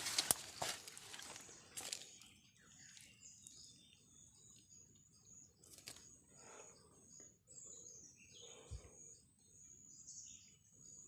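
Faint forest birds chirping and twittering, with a few sharp clicks and rustles in the first two seconds.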